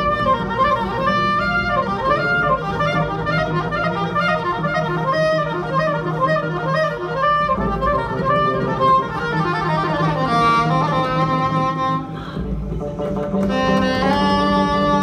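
Improvised trio music: a clarinet plays a winding melody over a Persian tar and a double bass holding a low note. The music thins briefly about twelve seconds in, then long held notes come back in.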